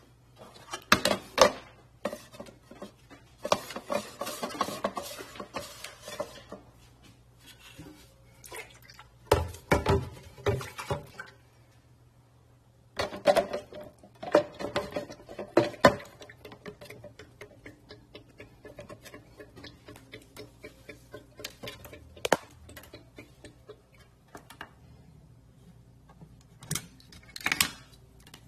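Irregular knocks and clatter of hard objects being handled, with a stretch of rustling a few seconds in and a run of faint, evenly spaced ticks in the second half.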